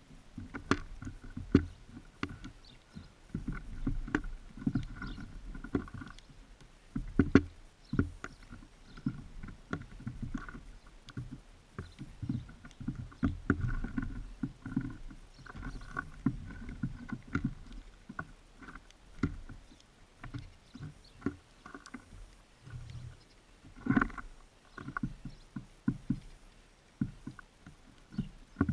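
Birds feeding at a seed feeder right beside the camera: irregular muffled knocks, taps and scuffles as they peck at the seed and hop about on the feeder, with a louder knock now and then, about seven seconds in and again near the end.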